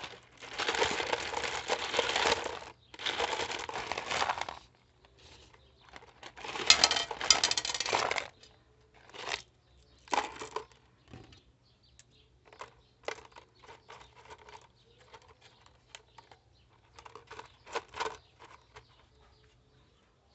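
Small stones and charcoal pieces poured and rattling into a cut plastic PET-bottle pot, in three pours of a second or two each, then scattered clicks and taps of single pieces.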